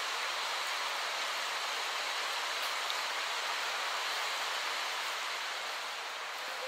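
Steady, even rushing of a river swollen and in flood after a thunderstorm.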